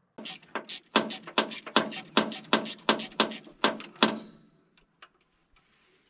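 Ratchet wrench clicking in quick even strokes, about three or four a second, while loosening the top bolt on a backhoe's starter motor. It stops about four seconds in.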